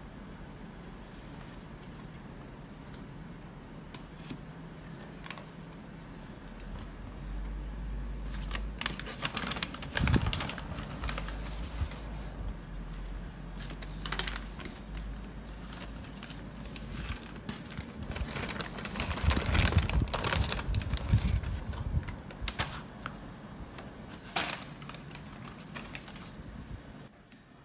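Paper bakery bags crinkling and flaky pastries and baguette slices being set down on a wooden board: a run of irregular light taps and crackles that starts about a quarter of the way in, louder around the middle, over a quiet room background.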